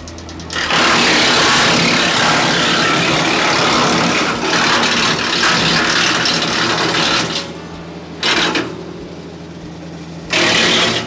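Tractor-driven 4-inch PTO wood chipper chewing through a load of brush, loud for about seven seconds, then running empty on the tractor's engine with two short bursts of chipping near the end. The thickest piece is about the maximum size this 4-inch chipper takes.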